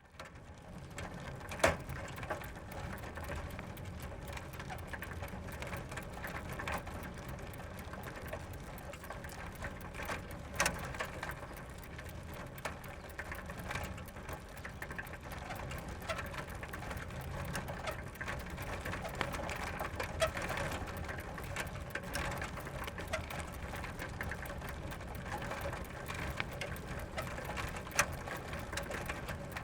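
Bicycle ridden slowly and continuously: a steady mechanical rattle and ticking of the chain and drivetrain over a low rolling rumble, with a few sharp clicks or knocks.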